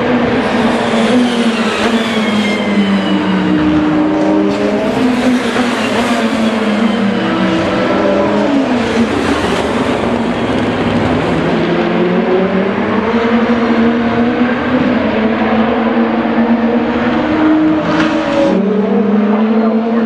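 2019 DTM race cars' turbocharged 2.0-litre four-cylinder engines working a corner, several cars overlapping. The engine notes fall in pitch as they lift and brake, then rise again as they accelerate away, with a couple of sharp cracks near the end.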